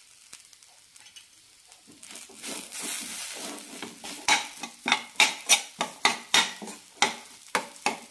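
Steel spoon stirring and scraping a crumbly mix of roasted semolina and cooked moong dal in a steel pan, mashing out lumps. It is quiet at first, then soft scraping, and from about four seconds in there are regular strokes of the spoon against the pan, about two to three a second.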